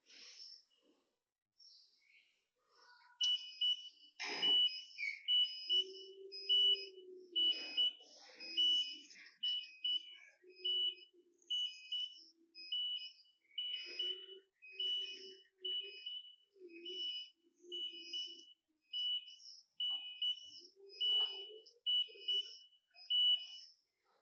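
Electronic warning beeper sounding a steady run of short, high beeps, about three every two seconds. It starts a few seconds in, and a lower tone sounds under some of the beeps.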